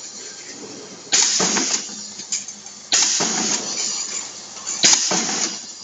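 Pneumatic eyelet machine setting metal eyelets into canvas: three strokes about two seconds apart, each a sudden clack of the press followed by a hiss of air that dies away within a second.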